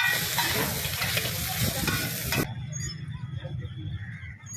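Food frying on a flat griddle, sizzling loudly while a metal spatula scrapes and knocks against the pan. The sizzle cuts off suddenly about two and a half seconds in, leaving a much quieter background.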